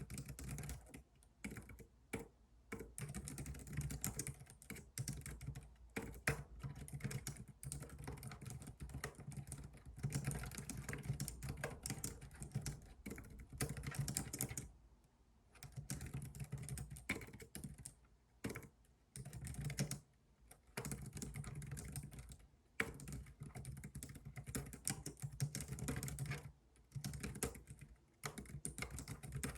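Steady typing on a computer keyboard: rapid key clicks in runs of a few seconds, broken by short pauses, over a low hum.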